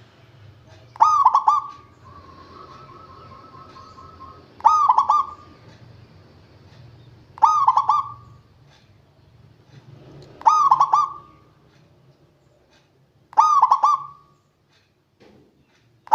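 Zebra dove (perkutut) cooing: five short stuttering calls, about one every three seconds. A fainter quick run of notes follows the first call.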